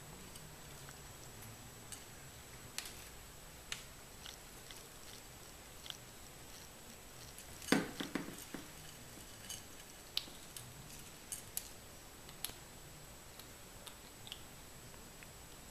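Kittens crunching dry kibble and pawing it about in and out of their food bowl: scattered sharp clicks and crunches, with a louder clatter about eight seconds in.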